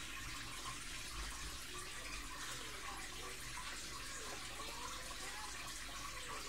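Steady running and trickling water from an aquarium's filter circulation.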